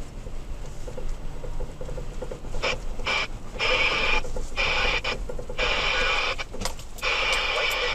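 Two-way radio in a truck cab receiving a weak, broken-up transmission: bursts of static-laden, garbled signal that cut in and out several times, starting about two and a half seconds in, over the low rumble of the truck.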